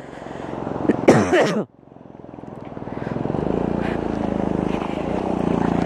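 Vehicle engine pulling under load on a rough off-road track, rising, dropping off sharply after a brief loud sound about a second and a half in, then building back up to a steady run.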